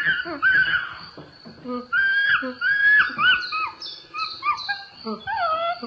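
Animal calls: a quick series of short, high, whining calls that slide up and down in pitch, one after another, over a steady high hiss.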